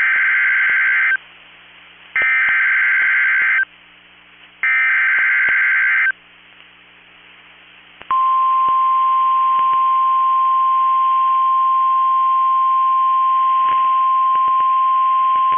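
NOAA Weather Radio Emergency Alert System signal. It opens with three buzzy digital SAME header bursts, each about a second and a half long with a short gap between them. About eight seconds in comes the single steady warning alarm tone. The sequence marks the start of a new severe thunderstorm warning.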